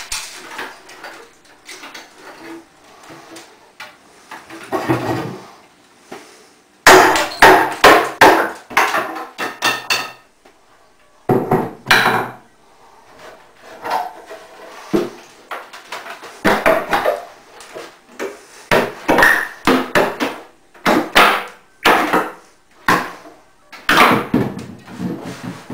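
Wooden kitchen wall-cabinet doors swung open and shut by hand, clacking and knocking against the cabinet frames in irregular runs.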